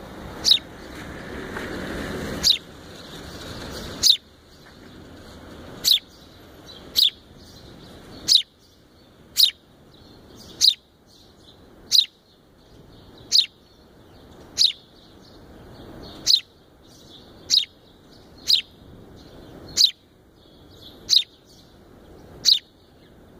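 Fledgling house sparrow chirping repeatedly: sharp single chirps, each a quick falling note, about one every second or so. A low hum of street noise lies underneath and is louder in the first few seconds.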